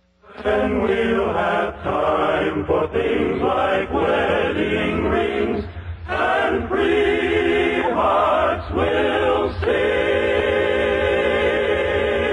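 A choir singing sustained, shifting chords, heard as an old radio transcription recording with a muffled, narrow sound and a steady low hum underneath. The sound drops out briefly at the very start.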